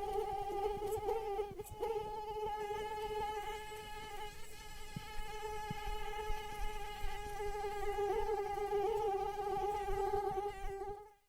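Female mosquito in flight, its wingbeat making a steady, slightly wavering high whine. The whine cuts off suddenly near the end.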